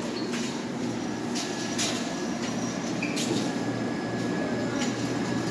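Steady machine hum in a shop, with a faint high whine held throughout and a few sharp clicks and knocks.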